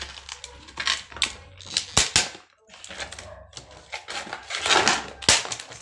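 Stiff clear plastic blister packaging being cut and pried open by hand, crinkling and rustling, with sharp snaps about two seconds in and again near the end.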